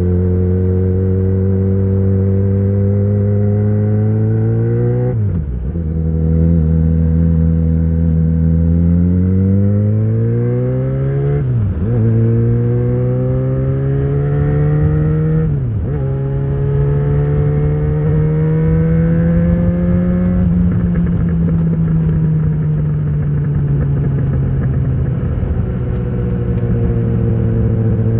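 Yamaha XJ6 inline-four engine through an Ixil full exhaust with the dB killer fitted, accelerating up through the gears. The revs climb and drop sharply at three upshifts over the first sixteen seconds, then hold steady and ease off slightly while cruising.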